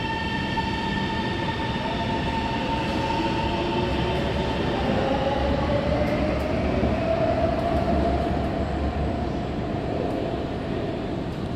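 Hangzhou Metro Line 1 subway train pulling out of the station. Its traction motors give a whine that rises in pitch as it accelerates away, over the rumble of the cars on the track.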